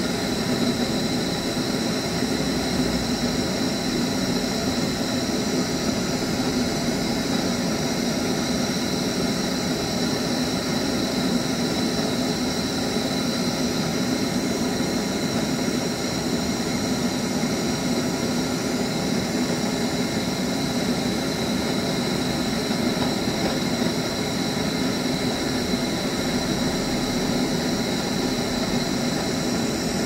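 Gas torch flame burning with a steady roaring hiss while refrigerator tubing is brazed.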